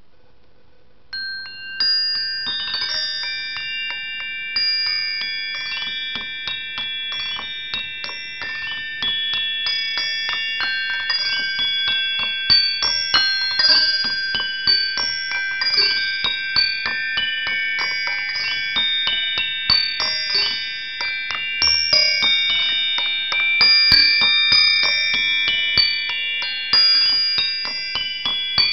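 Music of high, bell-like metallic notes, struck in quick succession and left to ring and overlap, starting about a second in.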